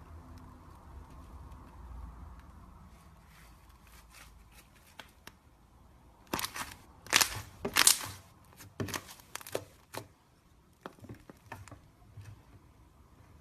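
Crackling, crinkling noise in a string of sharp bursts, loudest from about six to eight seconds in, with a few weaker crackles after a faint steady hum.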